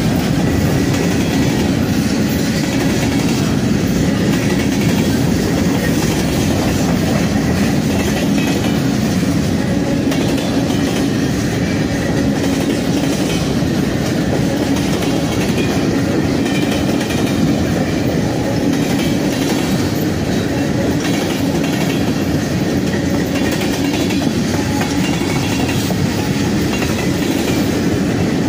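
A Norfolk Southern freight train's cars (covered hoppers, centerbeam flatcars, a tank car) rolling past at a steady speed. Their steel wheels make a continuous, even rumble on the rails.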